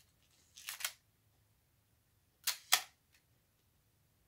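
Two pairs of sharp mechanical clicks from a Nikkormat FTN 35 mm film camera, the pairs about two seconds apart and the clicks in each pair a fraction of a second apart. They are its shutter, set to a slow speed, and its film-advance lever being worked by hand.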